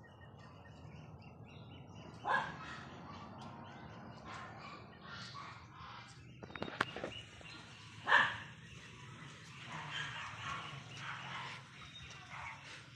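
A dog giving a few short barks, the loudest about two and eight seconds in, over water splashing during a dog's bath.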